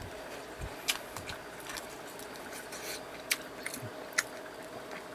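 A few faint, short clicks and crinkles of a plastic sauce pouch being handled and opened, over a faint steady hum.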